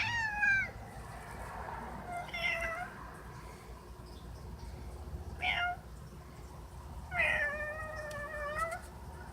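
Domestic cat making vibrato meows at birds outside the window: a falling meow at the start, two short chirpy meows, then a longer held, wavering meow near the end.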